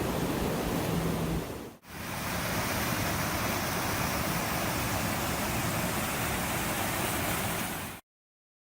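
Waterfall rushing with a steady, even roar of falling water. It drops out for an instant about two seconds in, then cuts off suddenly near the end.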